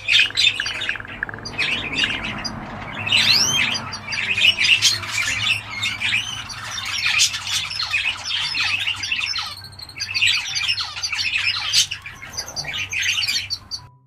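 Cockatiel grinding its beak: a dense run of fine clicking and scraping mixed with chirps and short rising and falling whistles. Beak grinding is the sign of a content, relaxed bird settling toward sleep.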